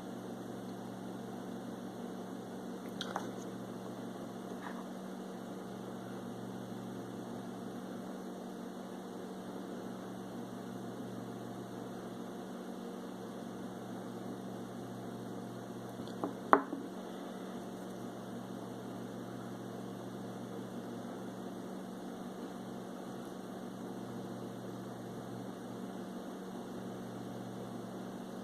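Steady low electrical hum with a few brief clicks: a couple of faint ones about three and five seconds in and a sharper one about halfway through.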